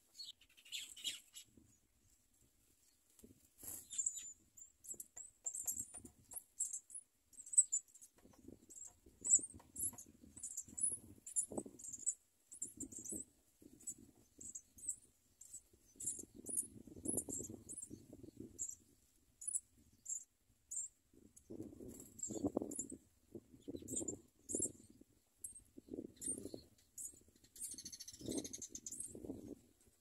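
House sparrow nestlings begging: a long series of short, very high chirps, about two a second. Soft low rustles of movement come and go beneath them, mostly in the second half.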